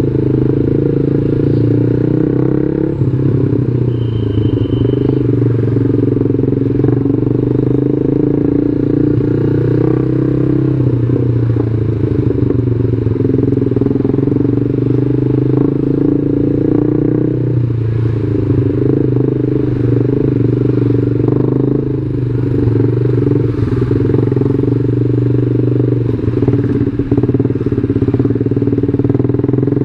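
Yamaha New Jupiter MX 135's single-cylinder four-stroke engine running steadily while the bike is ridden. Its note shifts a few times as the revs change. A short high beep sounds about four seconds in.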